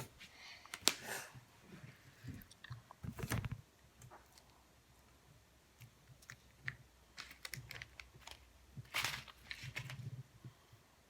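Slime mixed with foam beads being squeezed and kneaded by hand: soft, irregular crackles and small clicks, with a few louder squishes.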